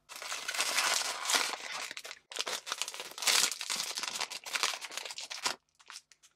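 Sealed foil blind-box bag crinkling loudly and being torn open, in two long stretches of rustling, followed by a few light clicks near the end.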